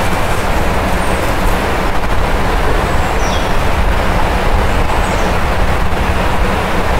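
Steady loud rushing noise with a deep low rumble. A small bird gives short, high, falling calls above it a few times.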